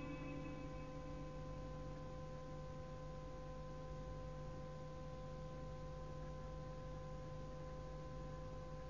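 Faint, steady hum with a few held tones and light hiss from the recording's background, during a pause in a recited Quran verse; the reverberant tail of the reciter's voice dies away at the very start.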